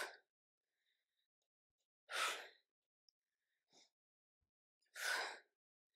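A woman's sharp, forceful exhales from exertion during single-leg kettlebell deadlifts, three of them about two and a half seconds apart.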